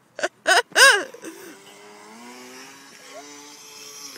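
A dog whining in three short, high yelps, each rising and falling in pitch. A faint vehicle engine drone follows, slowly rising in pitch.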